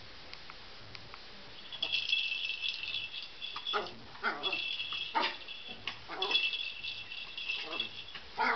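A small toy ball rattling in bursts of about a second and a half, three times, as a Chihuahua plays with it on carpet. Short sharp sounds come between the bursts.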